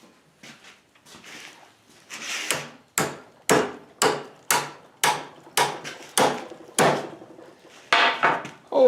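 Blacksmith's hammer striking hot steel strap on an anvil in a steady run of sharp, ringing blows, about two a second, after a short scraping noise.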